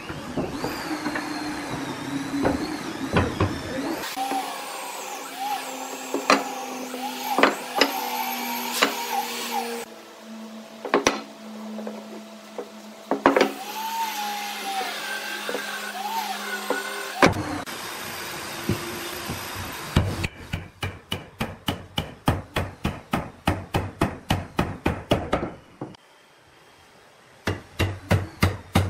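Sharp wooden knocks as timber parts are handled and set down. Then, about two-thirds of the way in, a fast, even run of hammer blows at about four a second, tapping a mortise-and-tenon joint home. After a short pause the blows start again near the end.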